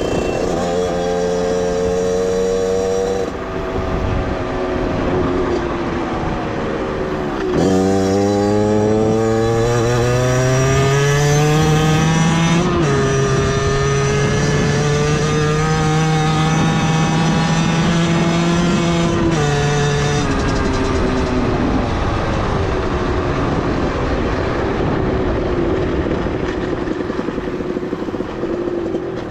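Beta 50cc two-stroke motorcycle engine running under way. About a quarter of the way in it revs up hard with a rising pitch, then the pitch drops once and holds steady for several seconds. Near the end it eases off to a lower, rougher note.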